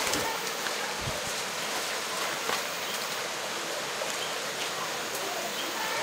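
Dry branches and leaf litter rustling as hikers crawl through a tangle of dead brush, a steady hiss with a few faint crackles and snaps.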